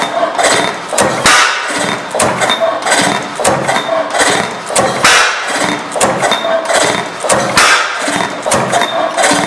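Antique Benz & Co stationary gas engine running, with a steady mechanical knocking of about three beats a second and a louder burst every few seconds.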